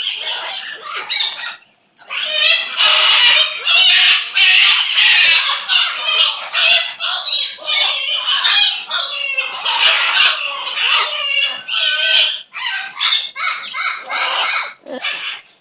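Pet bird calling in a long, busy run of short, high-pitched notes, with a brief pause about two seconds in.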